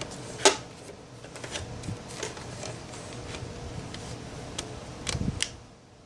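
Handling noise as a small scale is set up and the folding knife put on it: a sharp click about half a second in, scattered light ticks, and a few knocks near the end.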